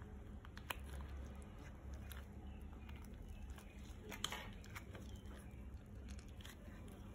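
Faint handling noise as a cream tube is brought to a steel mixing bowl and squeezed: a few light clicks, the sharpest about four seconds in, over a steady low hum.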